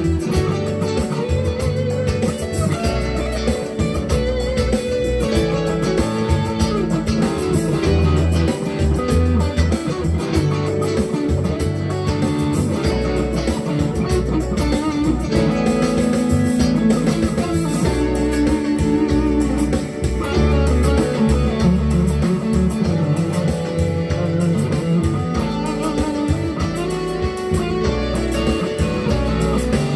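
A Strat-style electric guitar playing a funk groove over a backing track in B minor with bass and drums.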